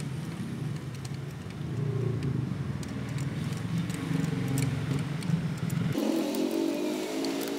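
Toyota Vios petrol engine running steadily. About six seconds in, the low rumble drops away suddenly and a higher, rising engine note takes over.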